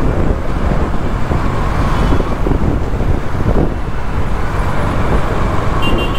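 Riding noise on a KTM Duke 200 motorcycle in city traffic: a steady rumble of wind on the microphone with the engine and surrounding traffic beneath it. A short high-pitched beep sounds near the end.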